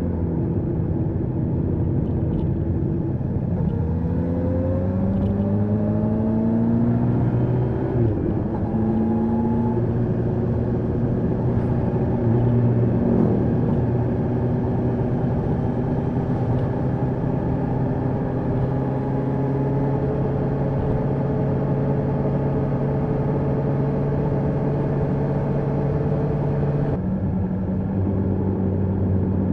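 Kawasaki H2 SX SE's supercharged inline-four with an Akrapovič exhaust, heard while riding. The engine note slides up and down over the first several seconds, then holds a steady cruising note. The note changes abruptly near the end.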